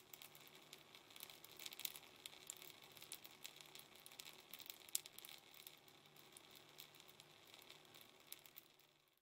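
Faint, crackling patter of a stream of urine splashing down, over a low steady hum; it cuts off suddenly at the end.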